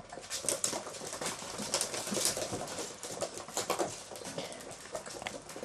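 Chinese crested puppies at play: irregular scuffling and light clicking as they move about and tussle.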